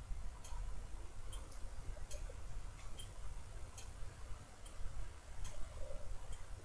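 Faint ticks, roughly one a second, over a low steady rumble.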